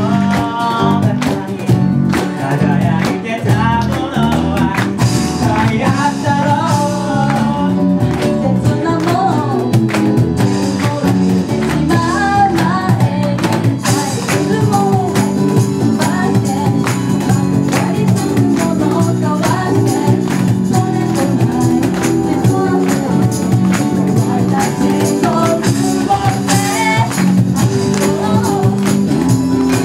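A small band plays a pop song in an acoustic arrangement, with keyboard and a steady light percussion beat under it. A young man sings the lead into a microphone, and a young woman takes over the lead about halfway through.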